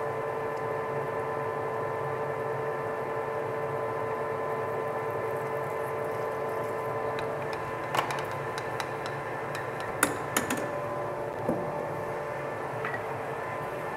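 Metal lathe running steadily with a constant hum while a center drill in the tailstock chuck drills the end of a spinning chrome hydraulic cylinder rod. A few sharp clicks come in the second half.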